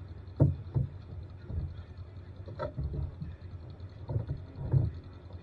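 A steady low engine rumble, as from an idling off-road vehicle, with about six short knocks and rattles on top; the loudest come near the start and near the end.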